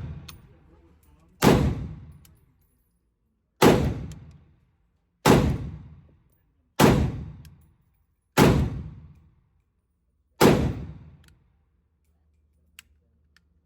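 Six single shots from a Draco AK-pattern pistol, fired one at a time about one and a half to two seconds apart, each with a short echoing tail. Two faint clicks near the end.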